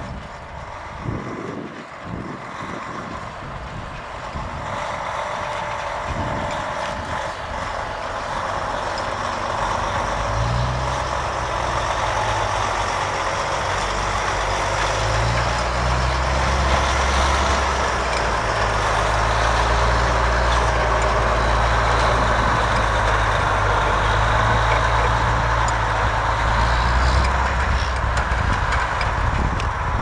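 Heavy airport crash-fire-rescue truck's diesel engine running as the truck drives across the grass, a steady low drone that grows louder from about ten seconds in.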